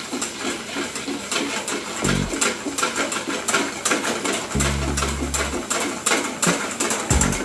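Wire balloon whisk beating sabayon in a stainless steel bowl over a double boiler, its wires clicking and scraping rapidly against the metal. A low rumble swells briefly about two seconds in and again for about a second in the middle.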